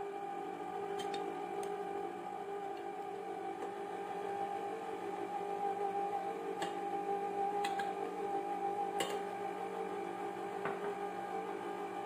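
Electric stand mixer motor running steadily at low speed, a constant hum. A few light clicks and taps of a glass bowl and spatula against the steel mixing bowl come at intervals as flour is added.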